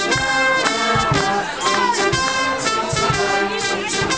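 Live brass band playing a tune on trumpets and trombone, with a beat of low drum hits underneath.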